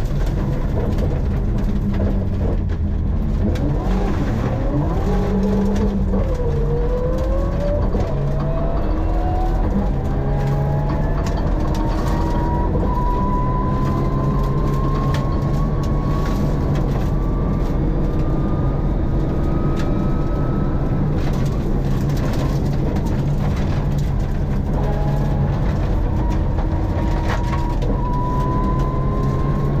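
Mitsubishi Lancer rally car heard from inside the cabin at full speed: the engine runs hard under load, with a high whine that climbs slowly in pitch as the car gathers speed, twice. Scattered short knocks from the road and chassis come through.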